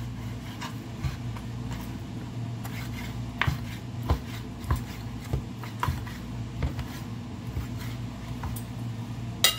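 Chef's knife cutting raw chicken breast into small cubes, the blade tapping the plastic cutting board about every half second or so from about three seconds in, with a sharper knock near the end. A steady low hum runs underneath.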